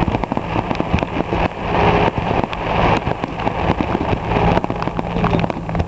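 Fireworks going off in a rapid, dense stream of crackling pops, over a steady low hum.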